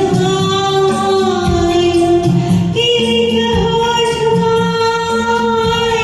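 Hindi film song sung over a karaoke backing track. Two long held vocal notes, the second higher and starting about three seconds in, over a steady rhythmic accompaniment.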